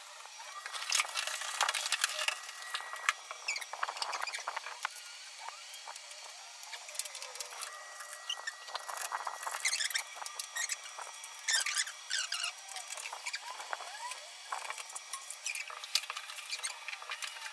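Fast-forwarded sound of flat-pack wardrobe assembly: a rapid jumble of clicks and clatter from panels, screws and a cordless drill, with short squeaky chirps, as sped-up voices and tool noises become.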